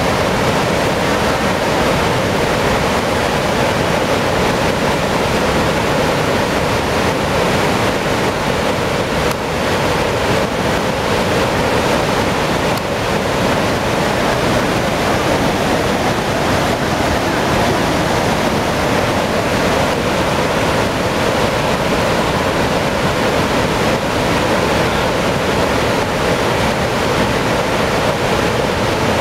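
Floodwater pouring through a dam's open tainter-gate spillways into the river below: a steady, unbroken rushing roar of white water.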